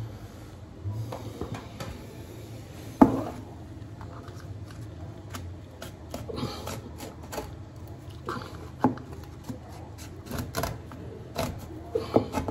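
Hand work on wallpaper behind a pedestal sink: scattered light clicks, taps and rustles as the paper is pressed in around the pipes, with one louder knock about three seconds in.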